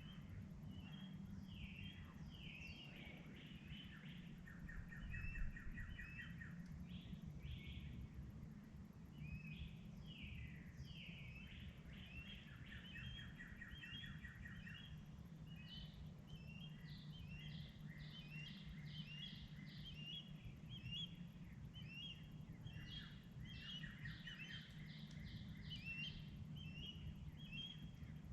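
Dawn chorus of several songbirds: overlapping chirps and short rapid trills repeating all through, over a steady low rumble.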